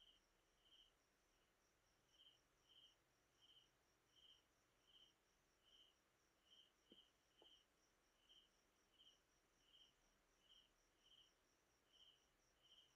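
Faint cricket chirping over near silence: single high chirps evenly repeated about one and a half times a second.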